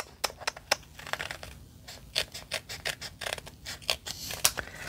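Small scissors snipping through embossed cardstock: a run of quick, irregular snips, the loudest near the end.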